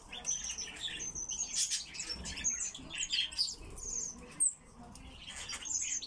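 Captive pine grosbeaks chirping: many short, high call notes in quick succession.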